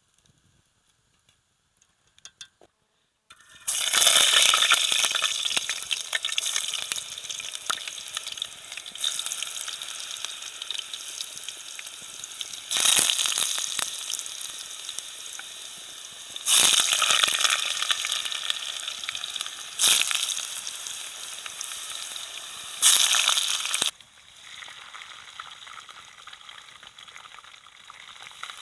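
Food sizzling as it fries in hot fat, starting suddenly a few seconds in. The sizzle flares up loudly four more times and dies back each time, then settles to a quieter sizzle near the end.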